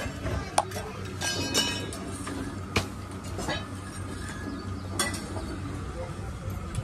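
Metal spatula clinking and scraping against an iron griddle (tava) as a bhakri is turned, with a few sharp clicks and a short run of ringing clinks about a second in.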